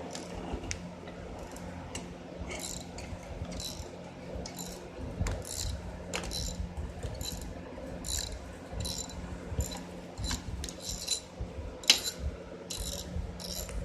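Metal hand-tool clicking on engine parts, in short bursts a little more than once a second, with one sharper knock near the end.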